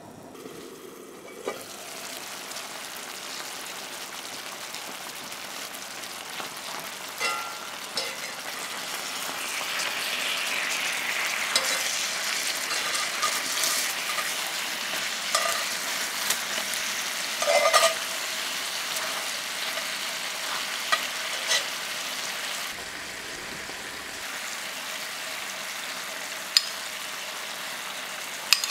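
Chicken thighs sizzling in teriyaki sauce in a cast-iron skillet, a steady hiss that swells and then eases off. Scattered sharp clicks and scrapes come from tongs and a spoon against the pan as the pieces are turned and basted.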